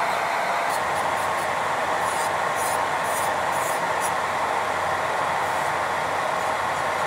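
Electric nail drill (e-file) running with a steady whine while its bit files a fingernail, with short scratchy bursts in the first half as the bit bites the nail. A nail dust-collector fan runs steadily underneath.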